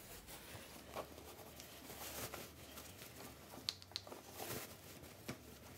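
Faint rustling and rubbing of woven fabric and lining as the two halves of a sewn bag are handled and fitted together, with a few small clicks, two close together near the middle.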